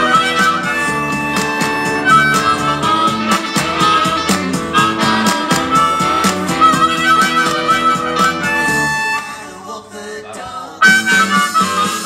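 Blues harmonica cupped against a handheld microphone and amplified, playing held and bent notes over backing music with guitar and a steady beat. Near the end the music drops away for about two seconds, then comes back in sharply.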